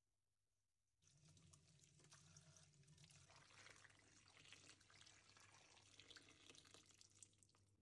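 Faint sound of water poured from a jug onto beef trotters in a stainless-steel bowl, rinsing off the flour. It starts about a second in and stops just before the end.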